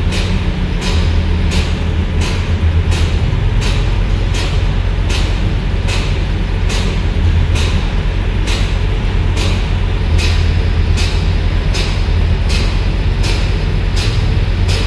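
Scania P410 XT truck's diesel engine idling steadily with a deep drone, with a sharp, hissing tick repeating evenly about twice a second over it.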